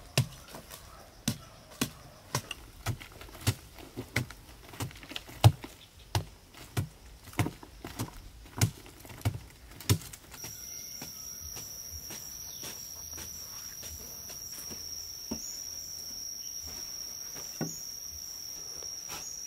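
A short-handled digging tool striking packed earth over and over, a little under two blows a second, as a pit is dug by hand. About halfway through the blows stop and a steady high-pitched insect drone takes over, with a couple of light knocks.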